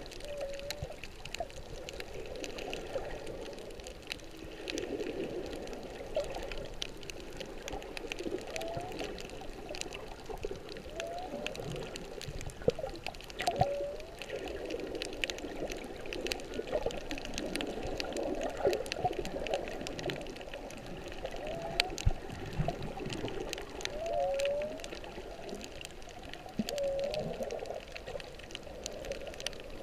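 Humpback whale song heard underwater through a GoPro housing: short swooping calls repeating every few seconds, with a few lower moans, over a steady wash of water noise and a constant crackle of sharp clicks.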